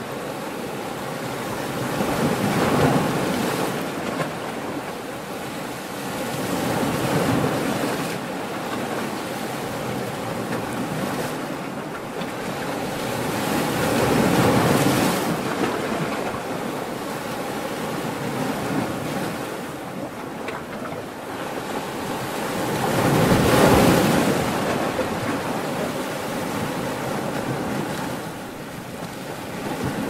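Ocean waves breaking: a steady rushing wash of surf that swells as each wave crashes and then ebbs, four or five times, with the loudest surge about three quarters of the way through.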